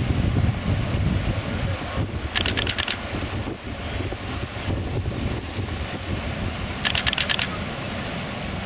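Wind buffeting the microphone over the steady wash of the sea, heavy in the low rumble. Twice, a quick burst of rapid clicks lasts about half a second.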